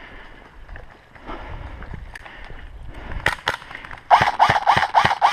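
Quiet rustling and scattered clicks, then near the end a quick series of about five loud, evenly spaced thuds with clatter, about four a second.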